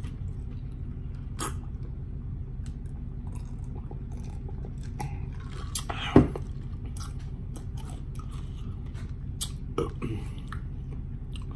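Close-up chewing and mouth sounds of a person eating, with scattered small clicks and one sharp knock about six seconds in, over a steady low hum.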